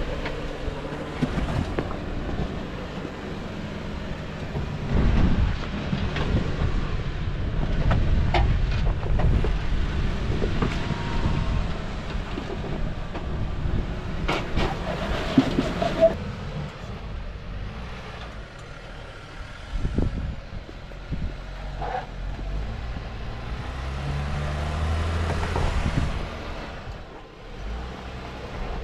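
Jeep Wrangler Rubicon engine running at low speed as it crawls along a rock trail, with several sharp knocks and clicks along the way.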